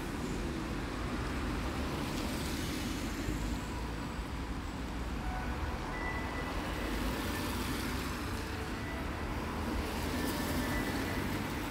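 Single-decker Alexander Dennis Enviro bus running steadily as it pulls slowly through a junction, with a low engine rumble and general street traffic.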